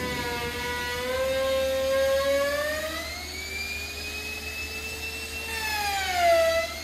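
Sawmill machine's motor running with a high whine. Its pitch rises slowly, holds, then dips near the end.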